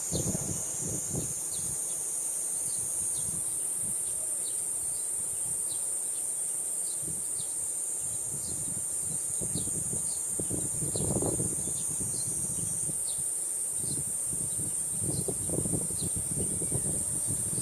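Cicadas singing in a continuous high-pitched drone, with a second layer that drops out about three seconds in and comes back later. A faint short chirp repeats about once a second. Wind buffets the microphone in low rumbles, strongest about eleven seconds in and near the end.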